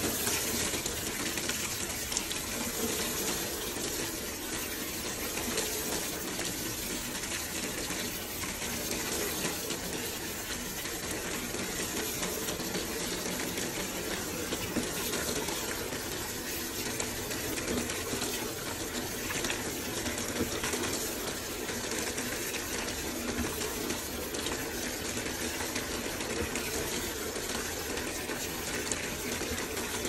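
Water pouring in a thick stream from a top-load washing machine's detergent dispenser into the drum, splashing steadily into the sudsy water as the tub fills.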